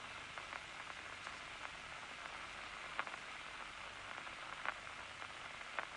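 Steady, faint hiss of an old programme's soundtrack noise, with a few soft clicks.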